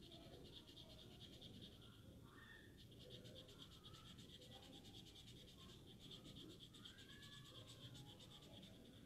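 Faint scratching of a pen drawing lines on paper, over a steady faint high-pitched pulsing hum.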